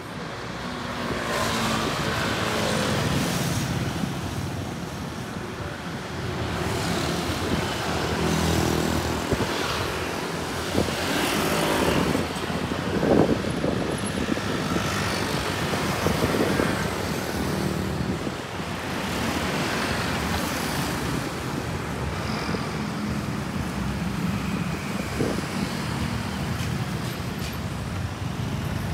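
Busy city street traffic: motor vehicles passing close by one after another, engine noise swelling and fading over a steady roadway hum.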